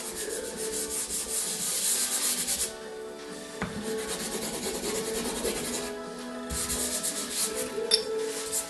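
Hand rubbing dry pastel into the paper, a scratchy rubbing in three spells of strokes with short breaks about three and six seconds in.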